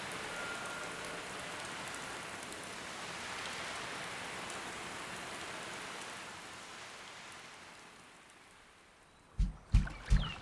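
Steady rain hiss that gradually fades away to silence, followed near the end by three sharp low thumps in quick succession.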